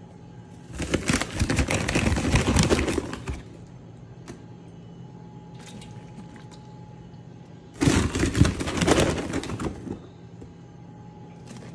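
A scoop digging into a woven plastic sack of flour, the bag rustling and crackling in two spells of two to three seconds each, over a faint steady hum.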